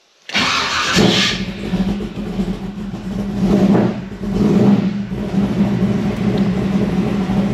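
540 cubic-inch big-block Chevy stroker V8 cranked by its starter for about a second and catching, then running at a loud, lumpy idle with two short revs about halfway through.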